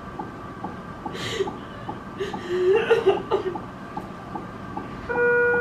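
Nervous chuckling and laughter in short bursts, loudest around the middle, over faint regular ticks about two a second. A steady electronic beep starts near the end.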